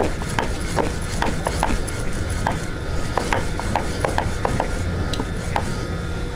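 Wooden rolling pin rolling a stuffed radish paratha out on a wooden board: rubbing strokes back and forth, with frequent light clicks and knocks of the pin on the board, over a steady low rumble.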